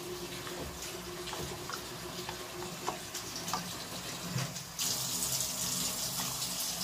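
Water pouring into a stainless steel pot of uncooked rice, with a few light knocks of a wooden spatula stirring it. About two-thirds of the way through, the water noise suddenly gets louder and hissier.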